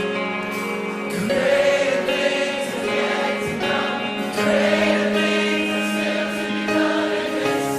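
Worship music with a choir singing over sustained instrumental chords.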